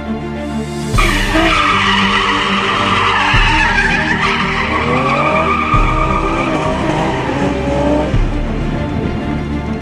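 Car tyres squealing through a long drift, starting about a second in, with the engine revving up and down. Background music with a steady beat runs underneath.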